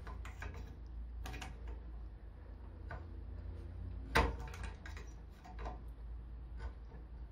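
Scattered small metallic clicks and ticks as locking grips clamped on a washer welded to a snapped brake-caliper bleed nipple are worked gently back and forth to free it from its thread, with one sharper click about four seconds in.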